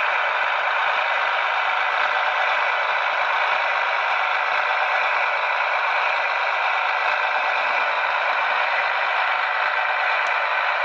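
Heljan OO gauge Class 128 parcels railcar model's sound decoder playing its twin diesel engines running steadily, thin and without bass through the model's small onboard speaker.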